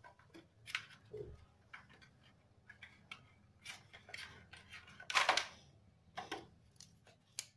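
Plastic clicks and scrapes as a parking-light bulb holder is twisted and pulled out of a motorcycle headlight housing by hand: a handful of sharp clicks at irregular intervals, the loudest about five seconds in.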